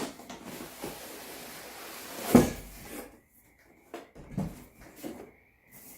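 Cardboard boxes being handled: a steady scraping of cardboard sliding against cardboard for about three seconds, a loud thump a little over two seconds in, then a few lighter knocks.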